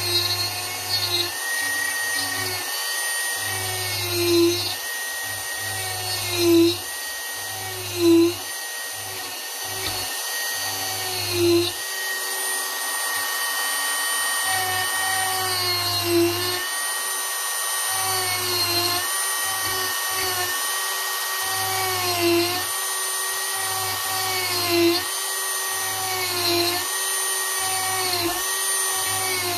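Dremel rotary tool carving wood: a steady high-pitched motor whine that sags in pitch and gets briefly louder every few seconds as the bit is pressed into the wood, then recovers.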